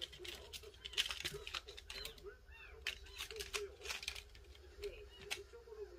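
A kitten's claws clicking and scratching on a woven wicker basket as it pounces and tumbles with a toy. A few faint, high kitten mews come through, about two and a half seconds in.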